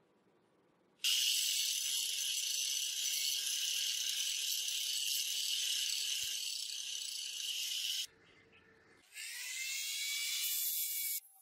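Angle grinder grinding down weld beads on a steel frame: a loud, steady, high hiss that starts suddenly about a second in and stops about eight seconds in. After a short pause a motor's whine rises in pitch as a tool spins up, then cuts off abruptly near the end.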